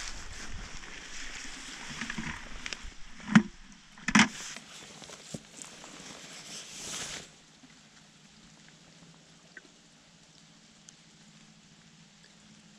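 Two sharp knocks as a plastic bucket strikes the wooden frame of a spring, then water rushing and gurgling into the bucket as it is dipped, swelling until it stops suddenly about seven seconds in.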